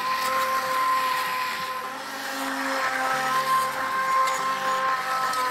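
Electric immersion blender running steadily in a pot of cooked wheat and lentils, pureeing them into a thick haleem paste: a continuous motor whine over the wet churning of the mixture.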